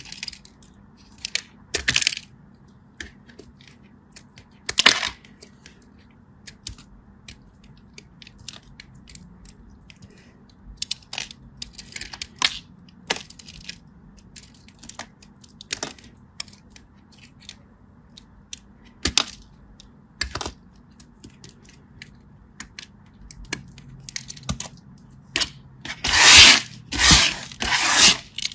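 Close-up crackling and clicking from something crisp being pressed and broken by hand: scattered sharp cracks with short crackles between them, then a louder run of crackling about two seconds long near the end.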